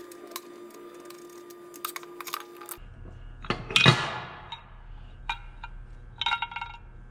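Steel lathe parts and a wrench being handled and set down, making light clicks. About four seconds in there is one loud metallic clank that rings on, then a few smaller ringing clinks.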